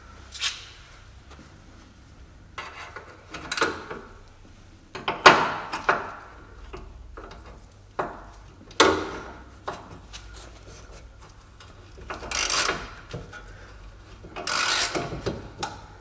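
Hand tools working the nut on a car's upper suspension ball-joint stud: a string of separate metal knocks and scrapes, each under a second, a few seconds apart.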